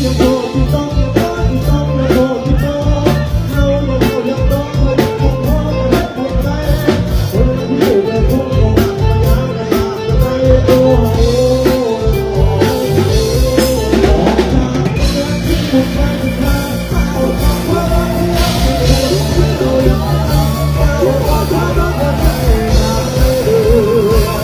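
Live band music with a drum kit keeping a steady beat under a singer's voice, played loud over a PA system.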